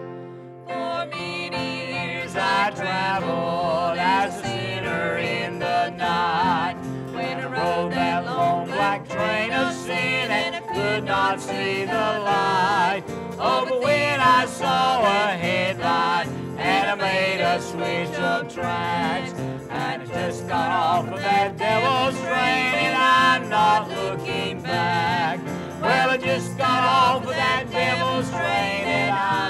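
A man singing a country gospel song over a country-style instrumental backing. The voice comes in about a second in, after a short instrumental lead-in.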